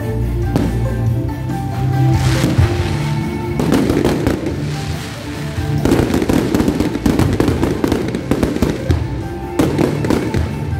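Aerial fireworks going off in dense, rapid crackling strings, in two stretches about a third of the way in and again from the middle until near the end, over music.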